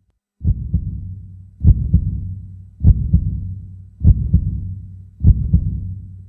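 Deep heartbeat-style double thuds with a low hum underneath, a sound-design bed under an animated title card. The pulse repeats about every 1.2 seconds, five times, each heavy hit followed by a softer second beat.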